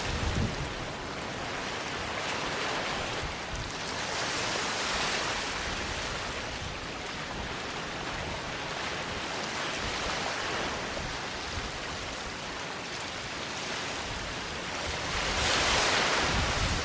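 Ocean waves washing onto a sandy beach: a continuous surf wash that swells and ebbs, with the biggest swell near the end.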